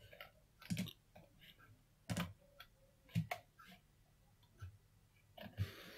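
Computer mouse clicking: a handful of faint single clicks, about a second apart.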